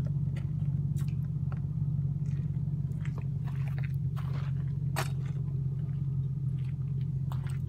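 Handling noise from a camera held against a bay-door window: scattered scrapes and clicks as it rubs and bumps on the glass, over a steady low hum.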